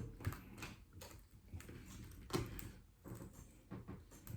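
Faint scattered clicks and light taps of handwork on a cracked iPad mini screen as it is pried off its adhesive.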